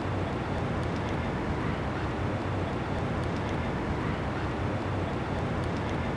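Steady low rumbling background noise with no changes, no speech and no music.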